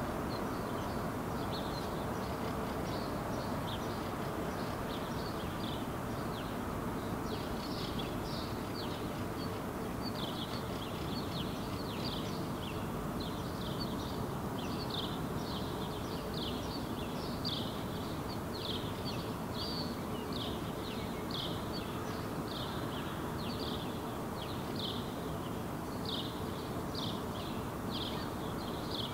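A bird's short, high calls repeated about once or twice a second over a steady low background rumble. The calls start sparse and become regular several seconds in.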